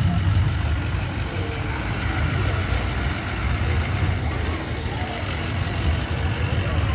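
Engines of a yellow truck-chassis ambulance and a fire-rescue truck rolling slowly past at parade pace, a steady low engine sound with no siren or horn.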